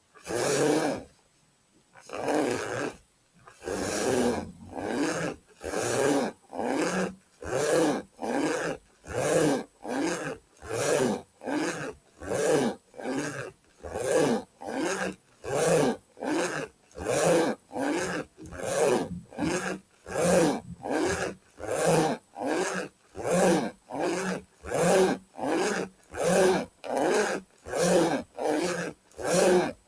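A pencil case being worked in quick repeated strokes for ASMR, a rasping stroke about three times every two seconds, each about half a second long. There is one short pause about a second in.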